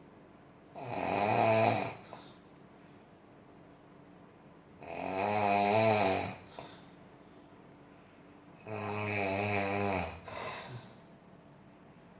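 A person snoring in sleep: three long snores roughly four seconds apart, each one to two seconds long. The third breaks into a shorter second part at its end.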